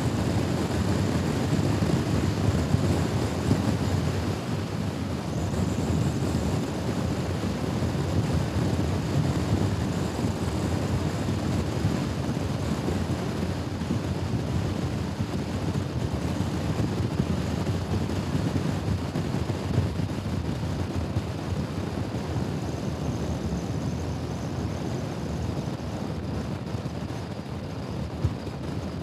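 Honda Forza scooter riding along: steady engine and road drone with wind noise on the microphone.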